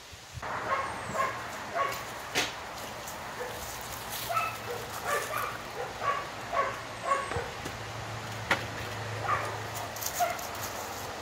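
A pug barking repeatedly in short barks, roughly two a second, over a faint steady low hum.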